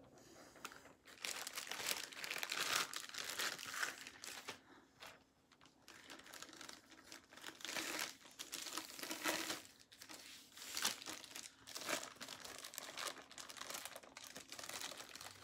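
Clear plastic sleeve crinkling and rustling as a rolled diamond painting canvas is worked into it, in irregular bursts with short pauses.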